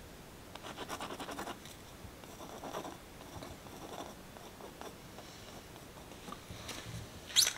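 Uni-ball Signal white gel pen scratching across sketchbook paper in short runs of quick back-and-forth strokes, with a louder rustle of handling near the end.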